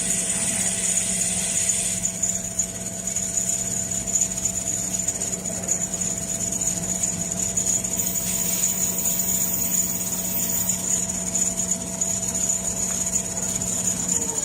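Large-format CNC sewing machine running with a steady motor hum and high whine, which stop near the end.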